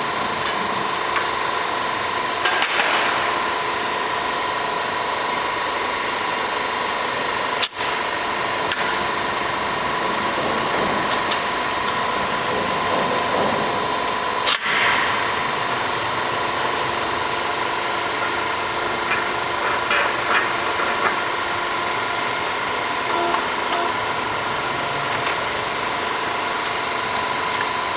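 Pipe bending machine's motor running with a steady hum, with a few short knocks and clanks from the pipe and tooling.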